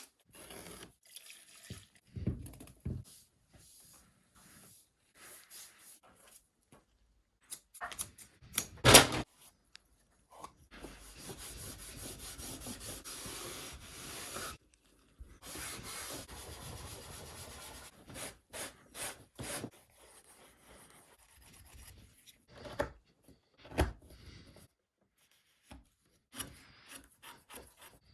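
Hand finishing work on a leather belt: intermittent rubbing strokes, with two longer stretches of steady rubbing or sanding and a single sharp knock about nine seconds in.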